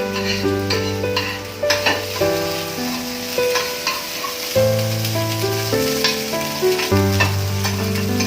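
Beaten eggs frying and being stirred in a hot pan: a steady sizzle with frequent sharp scrapes and taps of the spatula. Background music with held notes plays under it.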